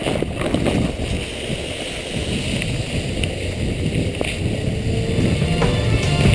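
Steady rushing noise of skis sliding over snow and wind on the microphone as a skier is towed at speed by rope behind a commuter train, with a faint rising whine in the second half.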